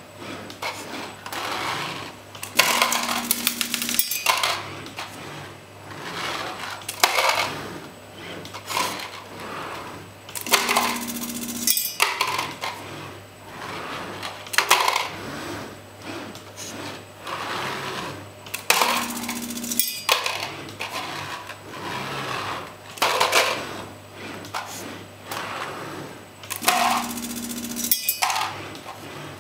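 Six-axis robot arm working through a cup-moving cycle: its joint motors whir in repeated moves, with clicks and clatter from the gripper and cups. A short buzzing tone comes back about every eight seconds, over a steady low hum.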